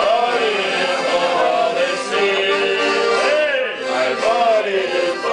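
Piano accordion playing a tune, with a man singing along.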